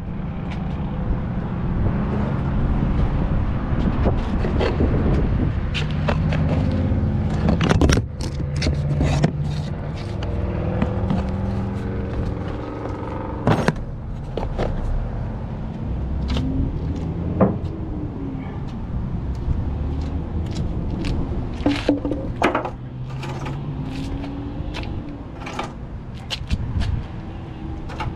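Heavy wooden timber blocks knocking and scraping as they are handled and set down on pavement, with a dozen or so sharp knocks spread through, over a steady low engine running.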